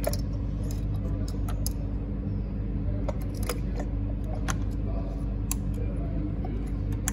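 Irregular plastic clicks and rattles as ignition coil packs and their plug connectors are unplugged and handled, so they can be swapped between cylinders. A steady low hum runs underneath.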